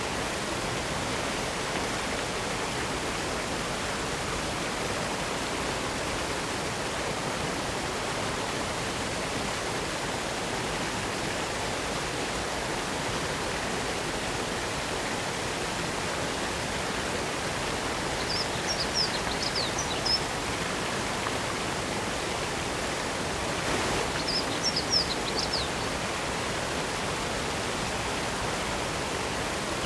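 Steady rush of falling water from a waterfall. Two brief bursts of high chirping rise above it, one a little past the middle and one about two-thirds through.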